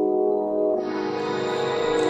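Music with sustained, held chords; a brighter, fuller layer comes in a little under a second in and holds.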